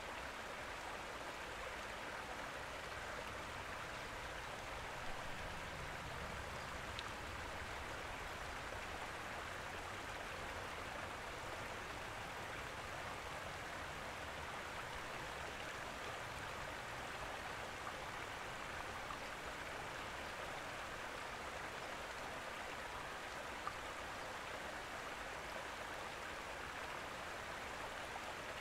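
Steady trickle of running water, like a gentle stream, with a couple of faint ticks.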